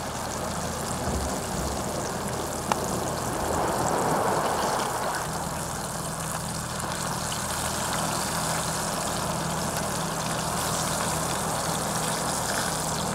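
Battered sheephead fillets sizzling steadily as they fry in hot oil in a small pan on a portable camp stove, with a single light click about three seconds in.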